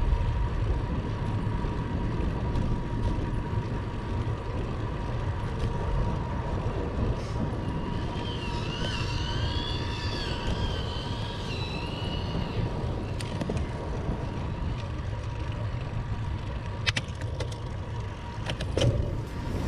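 Wind and road noise of a moving bicycle as picked up by its ride camera: a steady low rumble of wind on the microphone and tyres rolling on asphalt. A wavering high whistle comes in for about four seconds in the middle, and a few sharp clicks sound near the end.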